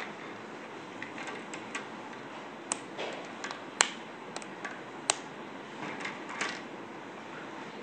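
Scattered clicks and taps of hard plastic toy parts as a hair-colouring stencil is fitted together and pieces are set down on a glass tabletop, with a couple of sharper clicks near the middle.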